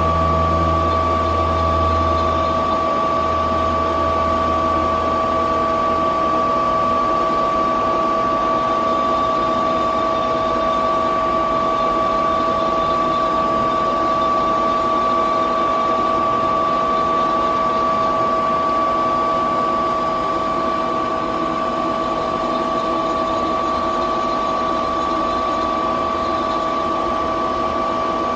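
Star SB-20R Swiss-type CNC automatic lathe running, a steady mechanical hum with two high steady whines over it. A low rumble fades out in the first few seconds, and a faint high hiss comes and goes.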